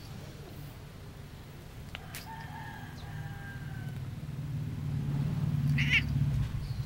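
Brown tabby American Shorthair cat purring, a low pulsing rumble that grows louder toward the end, with a faint drawn-out call about two seconds in and a brief higher sound near the end.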